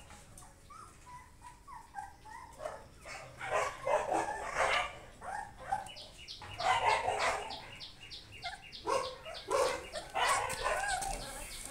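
Three-week-old Combai puppies whimpering and squealing in short, bending cries while they feed together from a bowl. The cries grow busier and louder from about three seconds in.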